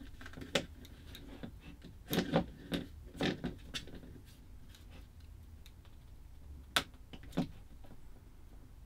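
Scattered light clicks and knocks of a camera being handled and screwed onto a 3D-printed plastic battery bracket. A cluster of them falls between about two and four seconds in, and two more come about seven seconds in.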